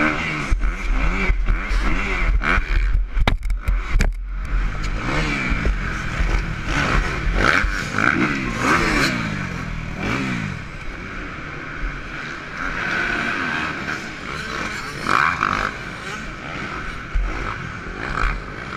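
Dirt bike engines revving up and down, several at once, picked up close by a rider's helmet camera on a supercross track. A cluster of sharp knocks comes about three to four seconds in.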